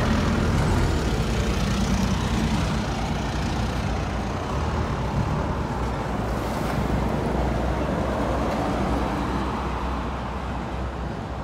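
Road traffic going by, including heavy trucks: a steady rumble and tyre noise that eases slightly near the end.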